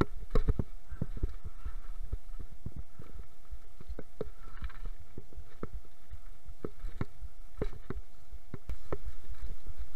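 Mountain bike clattering down a rocky trail: irregular knocks and rattles as the tyres and bike hit stones, over a steady low rumble. It gets a little louder near the end.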